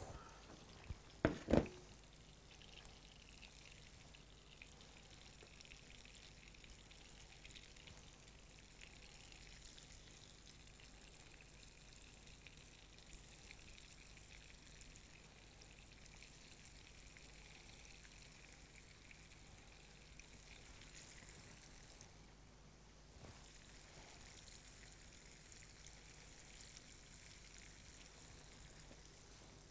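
Floured strips of beef sizzling faintly in shallow hot oil in a nonstick frying pan, a steady high hiss. A single sharp knock comes about a second and a half in.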